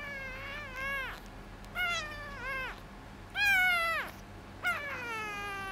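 A very young calico kitten mewing again and again while being bottle-fed: a string of high, falling mews, the loudest a little past halfway.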